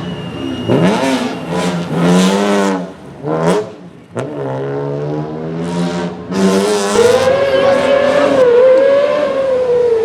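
Rally car engine accelerating hard, its note climbing and dropping through several quick gear changes, with a sharp crack about four seconds in. From about seven seconds the engine holds a high, steady pitch.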